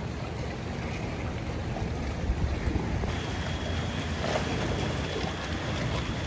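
Wind buffeting the microphone over water lapping around a small boat, a steady noisy rush. A faint, steady high-pitched tone comes in about halfway.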